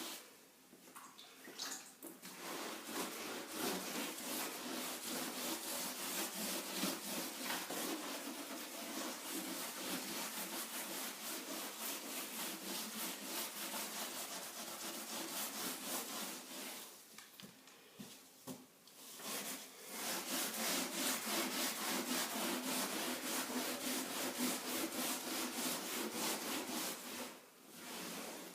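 Steel wool scrubbing a wet, stripper-coated soft pine floor in rapid back-and-forth strokes, a scratchy rubbing that stops for a couple of short pauses, neutralizing and lifting the softened paint.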